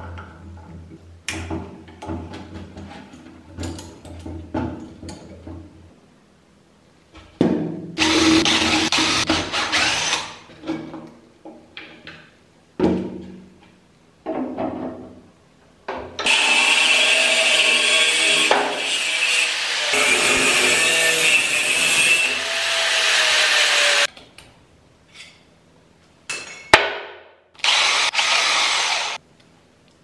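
Hand tools clicking and knocking on metal motor parts. A power tool runs three times: for a few seconds about seven seconds in, for about eight seconds in the middle, and briefly near the end.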